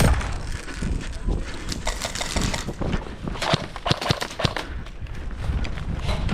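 Irregular clatter of footsteps and gear knocks from an airsoft player moving on foot, with a low rumble beneath; a sharp knock right at the start is the loudest sound.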